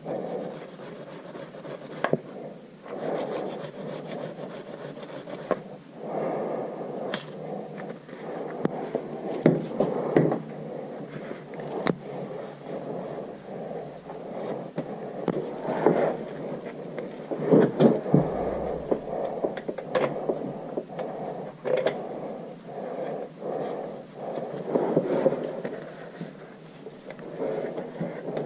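Irregular scraping and rubbing with scattered knocks and clicks, as of hand tools and parts being worked on a car.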